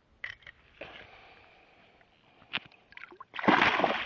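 Bass splashing hard in shallow water as it kicks free of the lip grip, the loudest splash near the end. Before it come a few small clicks and sloshes of water.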